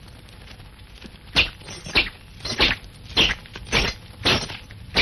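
Sword-fight sound effects from a staged fight: a run of about seven sharp, evenly spaced striking hits, starting about a second and a half in.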